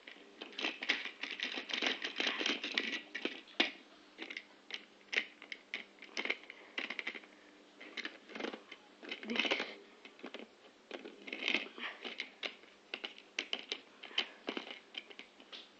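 Hornby model train running on sectional track laid on a wooden floor: a dense, irregular clicking rattle of wheels and couplings on the rails, over a faint steady hum from the locomotive's motor.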